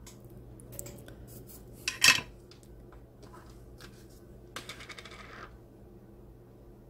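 A clear plastic parts case is handled and a small metal 3.5 mm plug with its parts is taken out of it. There is a sharp clatter about two seconds in, a short rattle near the five-second mark, and small clicks in between.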